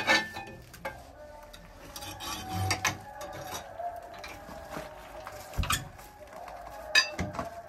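Scattered metal clanks and scraping around a coal-fired central-heating boiler whose firebox and door are caked with tar, with a sharp click at the start and a few more knocks later. A faint steady tone runs underneath.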